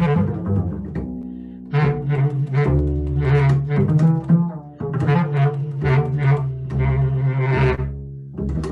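Free improvisation for double bass and bass clarinet: a held low note under a string of sharp, accented strokes that come every half second or so.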